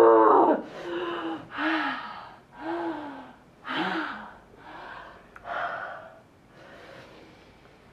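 A person's loud cry trailing off with falling pitch, then about six gasping, sobbing breaths, each with a brief rise and fall in pitch, growing fainter.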